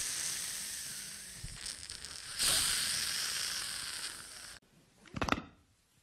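A man making a hissing, sizzling sound effect with his mouth into a microphone. The hiss fades, surges again about two and a half seconds in, then fades and cuts off abruptly, followed by one brief short sound.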